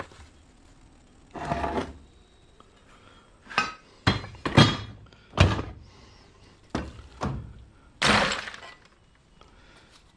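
Heavy cast-iron parts of a wood planer/jointer clanking and thudding as they are knocked about during scrapping: about eight irregular impacts over several seconds, the longest one near the end.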